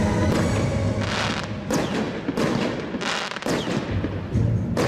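Firework aerial shells bursting in the sky, a run of sharp bangs spaced under a second apart.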